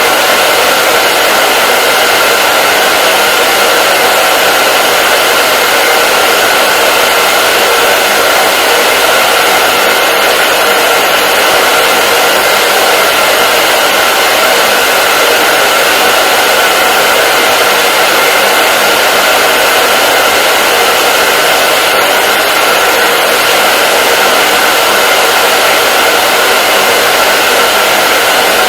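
Hair dryer running steadily: a constant loud airflow rush with a faint steady whine from the motor and fan.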